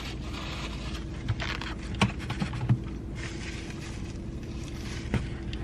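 Eating sounds: chewing with a few soft mouth clicks, over a steady low hum.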